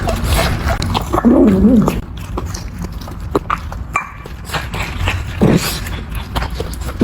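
A dog whimpering in a short wavering call about a second in and again briefly near the end, among scattered small clicks.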